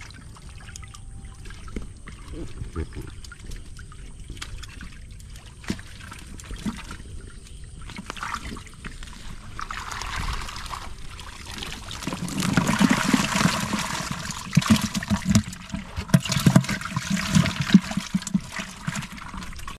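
Water trickling and splashing as a bamboo fish trap is worked in a shallow paddy-field channel. It grows louder and more irregular in the second half, with sharp splashes and knocks as the trap's catch is shaken out into a plastic jerry can.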